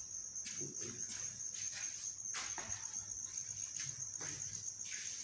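Quiet ambience with a steady high-pitched tone and a few faint scattered noises.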